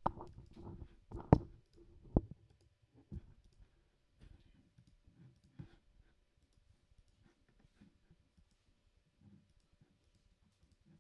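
A computer mouse clicking and being handled on the desk: a few loud clicks and knocks in the first three seconds, the loudest about a second in, then faint scattered ticks.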